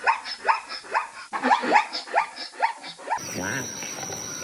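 A dog giving a rapid run of short, high-pitched yips, about three or four a second. The yipping cuts off abruptly about three seconds in, giving way to a different sound with a steady high whine.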